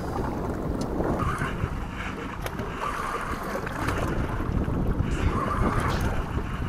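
Wind rumbling on the microphone over water slapping against a small boat's hull at sea, with a few faint clicks.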